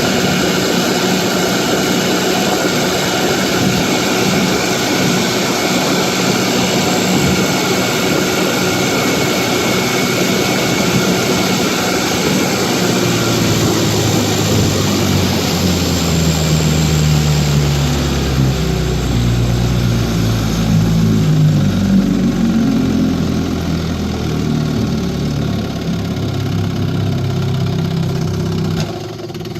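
1955 Johnson QD-16 two-stroke outboard motor running steadily at high speed, running quite clear. From about halfway its low note shifts and wavers, and it drops back sharply near the end.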